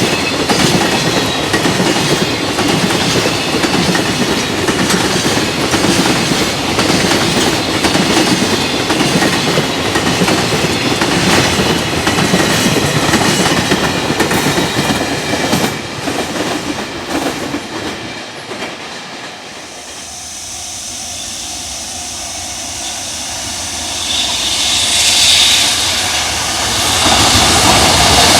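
Freight train passing close by, its wheels clacking rhythmically over the rail joints, then fading away about two-thirds of the way through. Near the end a high hiss builds up again.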